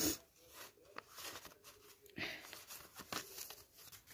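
Paper rustling and sliding, in short faint scrapes: paper cut-outs pushed into a small paper envelope and the envelope handled.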